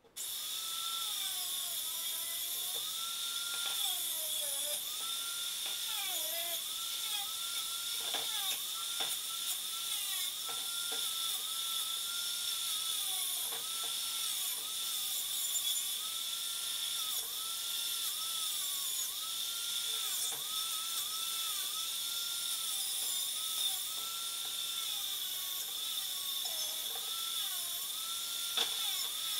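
A corded angle grinder switches on and grinds the rusty metal of an old bench end. Its motor whine dips in pitch over and over as it is pressed into the metal and recovers as the pressure comes off, over a steady high hiss.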